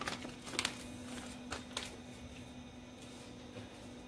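Quiet kitchen room tone: a steady low hum with a few faint clicks near the start and again about a second and a half in.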